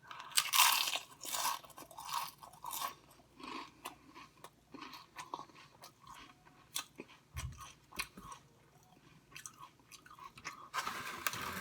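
Close-up crunching and chewing of a deep-fried wonton. Four loud, crisp crunches in the first three seconds give way to softer, irregular chewing.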